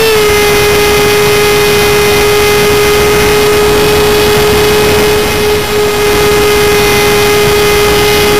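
Model aircraft's ducted fan heard close from the on-board camera, a steady high whine that steps down slightly in pitch at the start and then holds at one level under a hiss of rushing air.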